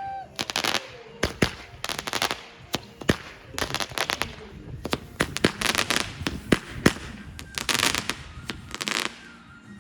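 Fireworks and firecrackers going off: rapid clusters of sharp bangs and crackles, thinning out near the end.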